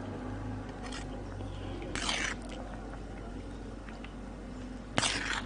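Metal spoon scraping on a metal platter while scooping rice: two short scrapes about three seconds apart, the second starting with a sharp clink, over a steady low hum.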